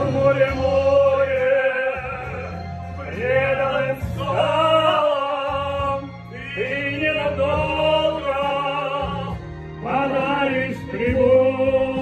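Operatic male voice singing long held notes with vibrato, in phrases of a few seconds each, over a steady backing track.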